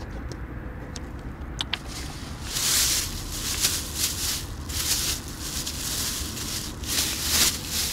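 Plastic bags rustling and crinkling as they are handled, in irregular bursts from about two and a half seconds in, after a couple of light clicks, over a steady low rumble.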